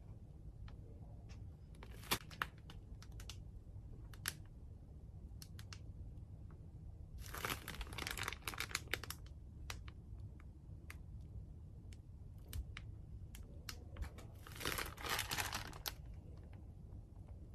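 Slime being squeezed and worked by hand: scattered small clicks and pops, with two longer stretches of crackling, about seven seconds in and again near the end.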